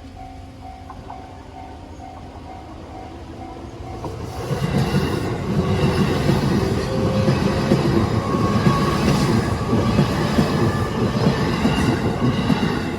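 A level-crossing warning bell rings in a steady, evenly repeated ding. About four seconds in, a JR Nambu Line E233-series electric train passes over the crossing, loud with clattering wheels on the rails and some wheel squeal, and keeps going until the end.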